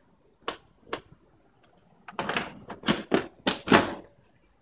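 Hand handling a padded fabric seat-cover bag on a sport bike's rear seat. Two light clicks come first, then a quick run of soft rustling taps about two seconds in as the hand presses and pats the cover.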